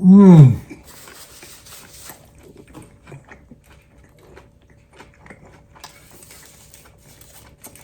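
A man's short, loud grunt of pleasure falling in pitch, then several seconds of close-up chewing of a Peking duck crepe wrap: soft wet mouth clicks and light crunching.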